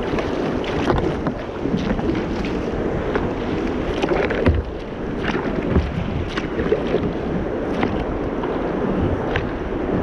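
Kayak paddle strokes, with short irregular splashes and drips as the blades dip into the water, over a steady rush of wind on the microphone and moving water.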